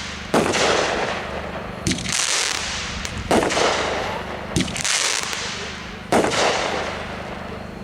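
Consumer firework cake (repeater) firing shot after shot, five in all, about one and a half seconds apart. Each shot is a sharp bang followed by a hissing trail that fades over about a second.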